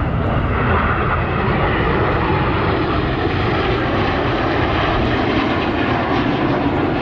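Jet noise from the Red Arrows' formation of BAE Hawk T1 jets flying past, a loud continuous rush that deepens in the second half.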